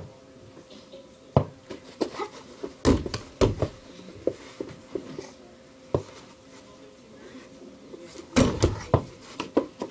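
Irregular thuds and knocks of a one-on-one game on a mini basketball hoop: the ball bouncing and hitting the backboard and rim, and feet landing on the floor, with a tight cluster of louder hits about eight and a half seconds in.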